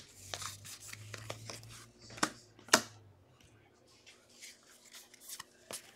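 Baseball trading cards handled by hand: cards rustling and sliding against each other and being tapped down onto a stack, with two sharper taps about two and three seconds in.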